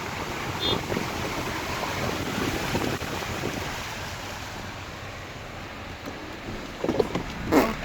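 Steady rushing noise of rain and water around a car moving through a flooded street, heard from inside the car. A few short, louder knocks come near the end.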